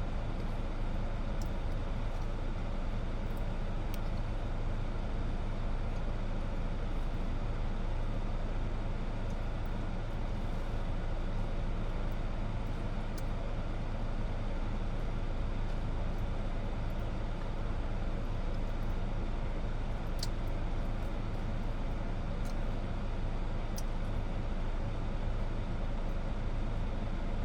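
Steady low rumble of an idling motor vehicle, with a few faint clicks.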